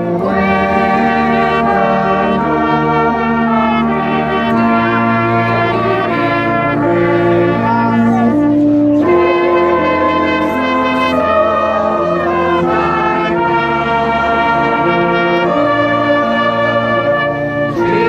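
Brass band with trombones and trumpets playing a slow tune in held chords, with a robed choir singing along. There is a short break between phrases about halfway through and another just before the end.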